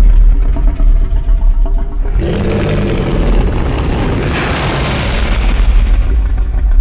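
Godzilla (2014) film sound effect: a loud, deep rumble. About two seconds in a second, harsher noisy sound starts, swells, and fades away near the end.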